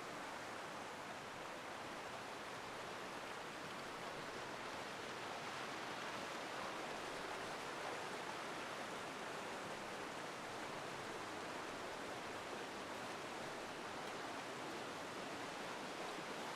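Steady rushing of a forest river running over small waterfalls.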